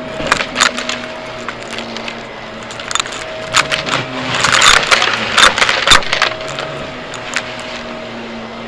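Vacuum cleaner running with a steady motor whine and airflow hiss while grit and debris click and rattle as they are sucked up, busiest in the middle stretch, where the whine briefly drops out under the pickup noise.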